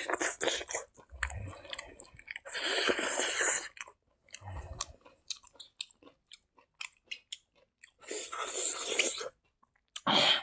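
Close-miked chewing of a mouthful of rice eaten by hand: wet clicks and mouth smacks, broken by three longer rushes of noise, about a second each, near the start, about three seconds in, and near the end.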